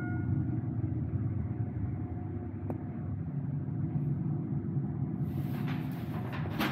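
Steady low rumble of an escalator carrying a rider down inside a glass enclosure. About five seconds in a brighter hiss comes in, with a short clatter near the end as the bottom nears.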